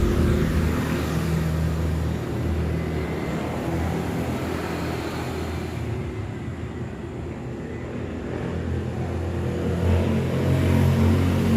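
Honda City car engine running steadily, growing somewhat louder near the end.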